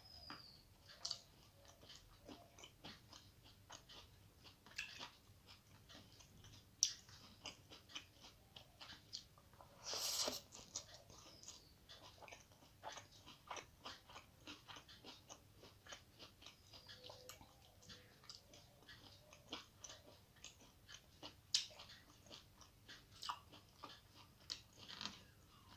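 Faint chewing of rice mixed with fried radish greens, eaten by hand: many soft, irregular mouth clicks and smacks, with one brief louder rush of noise about ten seconds in.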